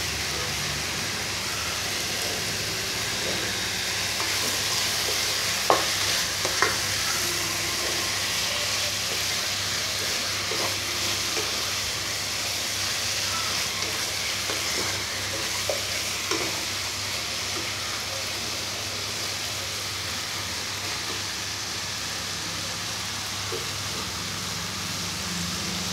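Chicken pieces in onion-chilli masala sizzling steadily in oil in a nonstick kadai while a wooden spatula stirs them, with a couple of sharp knocks about six seconds in.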